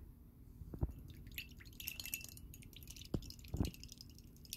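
A metal utensil beating milk in a glass measuring jug, clinking quickly and repeatedly against the glass from about a second and a half in, with a few dull knocks.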